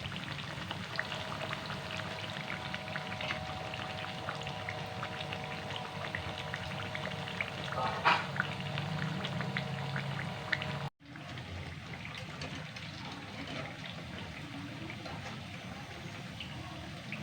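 Bakwan vegetable fritters frying in hot oil: a steady crackling sizzle, with a brief dropout about eleven seconds in.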